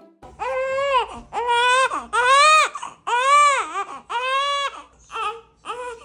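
Newborn baby crying: five long cries, each rising and then falling in pitch, followed by two shorter cries near the end.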